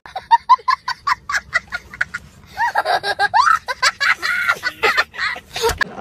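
Laughter that starts abruptly with a quick run of short ha-ha bursts, then goes into longer, drawn-out laughing.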